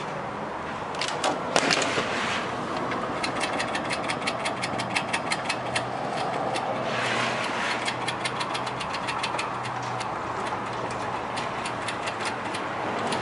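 Gas steam-table burner's spark igniter clicking rapidly and steadily, about five clicks a second, while the burner is being lit. A short hiss comes about seven seconds in, over a steady low hum.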